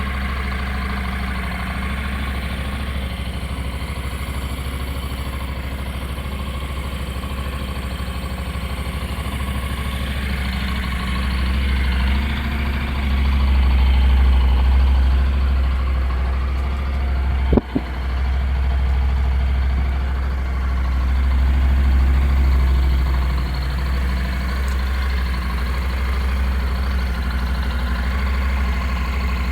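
Honda NC700S's 670 cc parallel-twin engine idling through its stock exhaust, swelling a little louder twice. A single sharp click about two-thirds of the way through.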